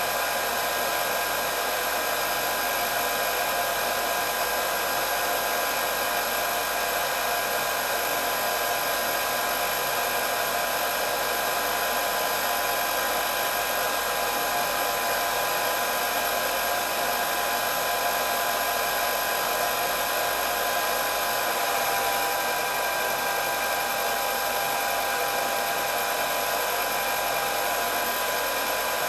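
Hair dryer running steadily: an even rush of blown air with a steady whine from the motor on top.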